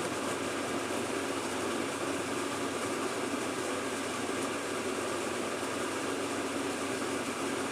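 Steady machine-like hum with an airy noise, even throughout, with no clicks or knocks standing out.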